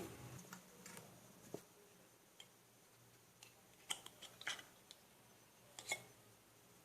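Faint, scattered snips and clicks of scissors cutting material for home-made fan blades, about six short sounds with near silence between them.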